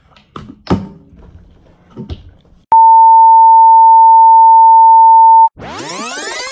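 A few faint plastic clicks from a water bottle's cap being twisted open, then a loud, steady, single-pitched test-card beep lasting about three seconds that cuts off abruptly. Near the end a sweeping sound effect of many tones gliding upward in pitch begins.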